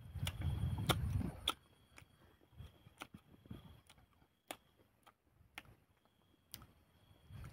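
A man chewing fresh leaves close to the microphone: a run of short wet mouth clicks and crunches at irregular intervals, after a low muffled noise in the first second and a half.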